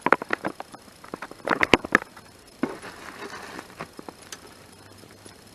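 Small hard parts being handled and rummaged through: a quick run of light clicks and knocks, then a stretch of rustling, and one more click.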